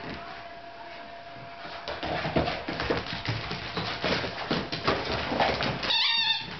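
Two Scottish terriers playing: paws scrabbling and claws clicking on a hard floor from about two seconds in, with a short, high yelp near the end.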